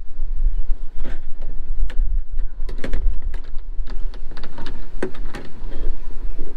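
Scattered clicks and knocks from hands fitting mounting hardware inside a plastic rooftop cargo box on the roof crossbars, over a steady low rumble.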